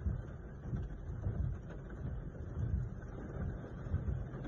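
Car interior noise in a rainstorm: an uneven low rumble of the car and rain, with irregular low thumps.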